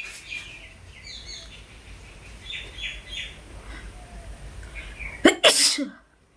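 A woman sneezes once, loudly, about five seconds in: a deliberately provoked sneeze, brought on by tickling the inside of her nose with a straw. Faint high chirping comes before it.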